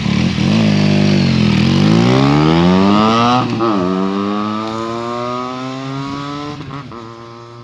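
Benelli TNT 300 parallel-twin motorcycle with an Ixil aftermarket silencer accelerating past: revs climb to an upshift about three and a half seconds in, then climb again with a second brief shift near the end, the exhaust note fading as the bike moves away.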